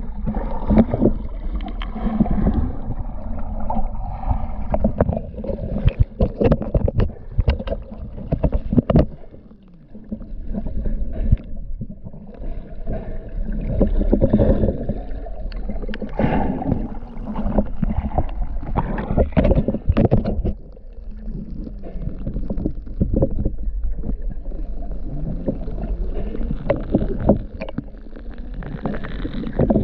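Muffled underwater sound from a camera beside a fishing boat's hull: a continuous low rumble with gurgling water and frequent irregular knocks and clicks.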